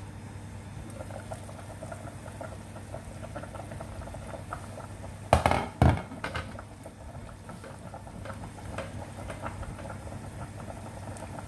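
Adobo sauce simmering in a pot, with light bubbling and popping. About five seconds in come two loud knocks about half a second apart.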